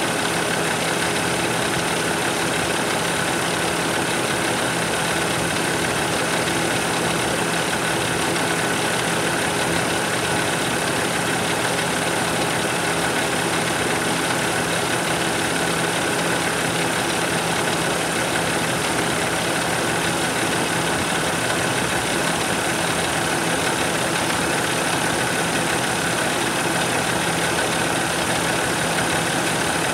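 Cummins ISX15 inline-six diesel engine idling steadily, heard close up at the open engine bay.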